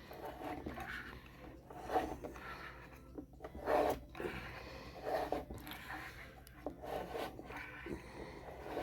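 Hand-cranked lid lifter being turned around the rim of a sealed tin can, its wheel rubbing and scraping on the metal in short, irregular strokes as it uncrimps the lid seam.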